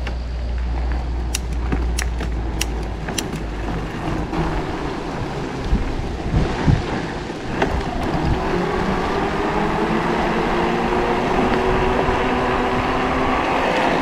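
Bafang BBSHD mid-drive e-bike motor whining as the bike gets under way, its pitch rising slowly through the second half, over tyre and wind noise. A few sharp clicks come in the first few seconds, and some thumps near the middle.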